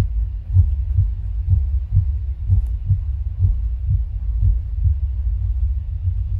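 Amplified human heartbeat played over loudspeakers: a low thump about once a second over a steady low hum. It is the sound of an interactive light installation that picks up a visitor's pulse from a hand sensor and plays it back.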